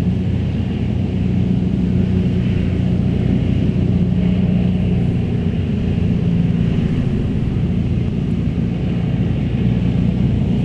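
John Deere tractor engine running steadily while working a McHale round baler in the field.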